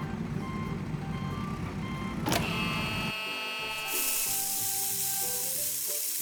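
Low truck-engine rumble with a repeating reversing beep for about three seconds, then a short whoosh. Music notes follow, with a loud hiss over the last couple of seconds.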